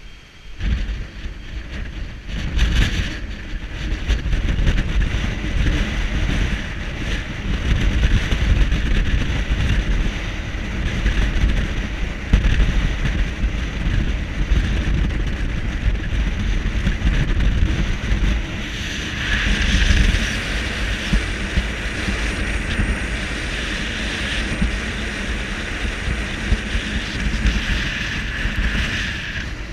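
Gusty wind buffeting the microphone, a heavy rumble, over a steady hiss of wind and sea. The hiss grows louder for the last third.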